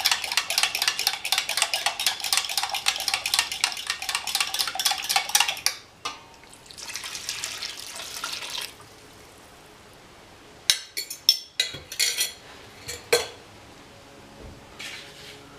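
A utensil stirring quickly in a pot of chili, knocking and scraping against the pot about four or five times a second for about six seconds to break up lumps of seasoning mix. Then a brief softer scrape, and a few sharp separate clinks near the end.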